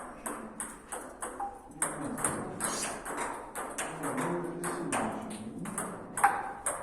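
Table tennis ball clicking against bats and table in quick, irregular succession, several strikes a second.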